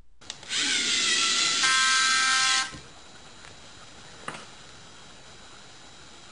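LEGO Mindstorms EV3 robot's motors whirring as it drives forward, with a one-second beep from the EV3 brick's speaker (a programmed C4 note) sounding over them about halfway through. Motors and beep stop together, leaving a faint hum and a single click.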